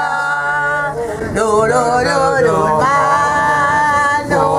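Men singing a song together, unaccompanied, in long held notes that bend up and down in pitch.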